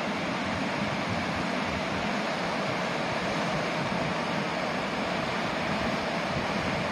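A swollen, muddy river in flood after heavy rain, rushing and churning through rapids in a steady, unbroken wash of water noise.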